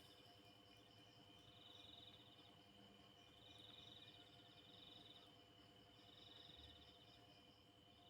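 Faint night chorus of calling insects or frogs: a steady high trill, with a pulsed buzzing call repeating about every one and a half seconds.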